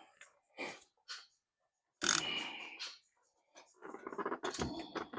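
Hand tools working at a truck's front wheel hub: a few short metal scrapes and clinks, with a louder clatter about two seconds in, then a quicker run of clicks near the end as a socket is fitted to the hub bolt.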